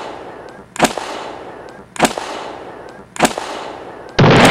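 Combustion potato cannon being fired: four sharp clicks about a second apart as the igniter is sparked, then the cannon goes off with a loud boom near the end.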